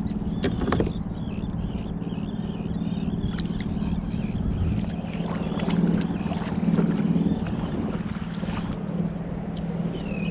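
A boat's motor running with a steady drone, while seabirds call repeatedly over it, mostly in the first half.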